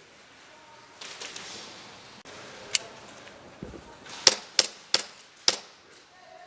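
Airsoft guns firing: single sharp shots, one a little under three seconds in, then four more in quick succession over about a second near the end.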